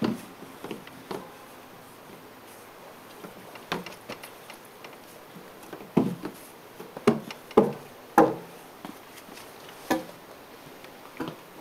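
A wooden board knocking and bumping on wooden deck steps, with a small child's footsteps, as he carries it down the stairs: irregular sharp knocks, several close together around the middle.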